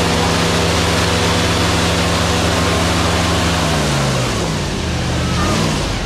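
Safari bus engine running steadily, with a steady rushing noise over it. About four seconds in, the engine note falls as the bus slows, with a brief rise shortly before the end.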